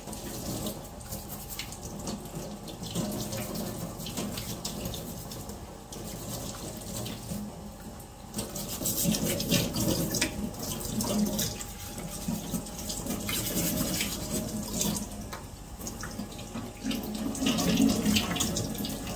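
Tap water running into a stainless steel sink while a mud crab's shell is scrubbed clean with a stiff plastic bristle brush, the bristles scratching over the wet shell in short strokes. It grows louder about halfway through.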